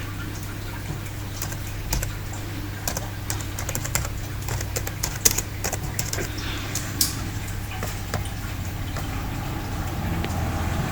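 Irregular key and button clicks, in quick clusters through the middle, over a steady low hum.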